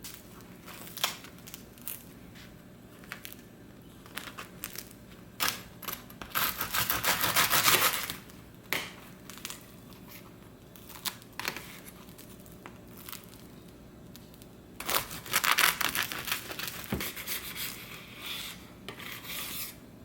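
Handling noises: scattered clicks and taps, with two longer spells of crinkling and rustling, like packaging or wrapping being handled.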